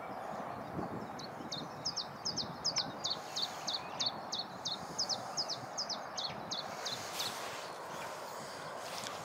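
A small songbird singing a fast series of sharp, high, down-slurred notes, about three a second, for about five seconds, over a steady outdoor hiss.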